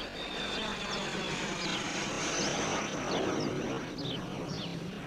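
Outdoor garden ambience: a steady rushing background noise with scattered short, high, downward-sliding chirps of small birds.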